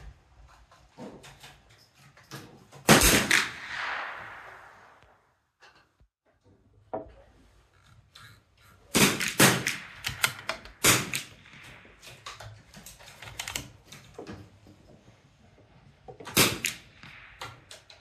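.22 LR rimfire rifle shots from a firing line, each a sharp crack that rings out briefly. The loudest comes about three seconds in, a cluster of several follows around nine to eleven seconds and another loud one comes near the end, with fainter cracks scattered between.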